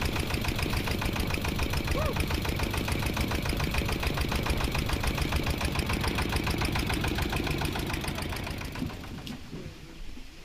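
Motorised wooden river boat's engine running steadily with a fast, even chugging, then dying away near the end as the boat nears the bank.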